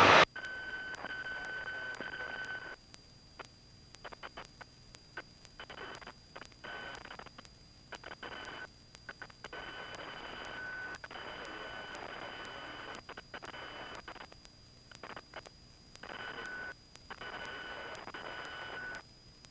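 Faint hiss with a thin steady whine on the aircraft's headset intercom feed, cutting in and out every second or two as the intercom's voice-activated squelch opens and closes.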